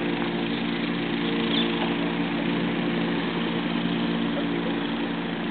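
Steady mechanical hum at one constant pitch, over an even hiss.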